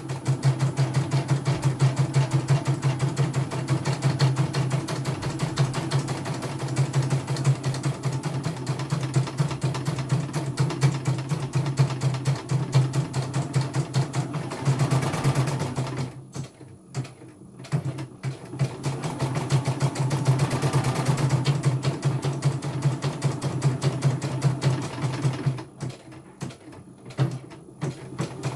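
CNY computerized embroidery machine stitching, with a steady motor hum under fast, even needle strokes. The stitching stops briefly twice, about halfway through and again near the end, then carries on.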